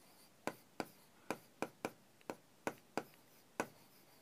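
Marker pen writing on a whiteboard: a faint string of short, sharp strokes, about nine in four seconds at an uneven pace.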